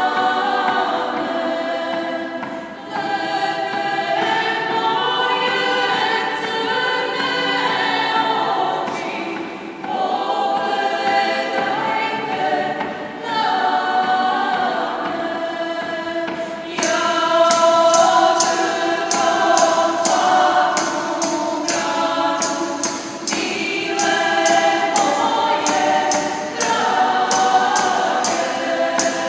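Large mixed choir of men's and women's voices singing a choral piece under a conductor. About halfway through, a crisp rhythmic ticking of about three strokes a second joins the singing and runs on with it.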